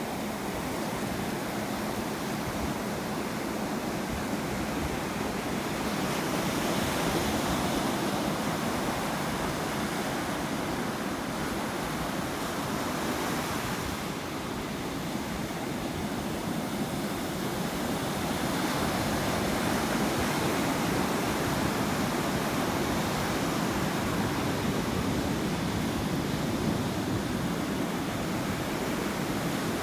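Ocean surf: waves washing in continuously, the rush swelling and easing back over several seconds, twice.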